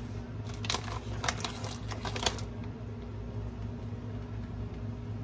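Handling noise: a quick run of clicks and rustles from about half a second in to just past two seconds, the sharpest near the end, over a steady low hum.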